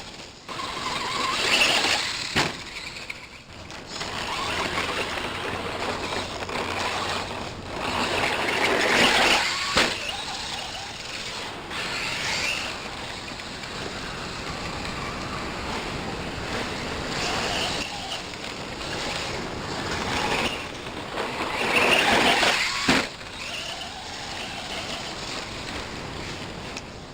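Brushless-motored RC car driving in several bursts, its motor and tyres swelling louder and fading, with wind noise on the microphone.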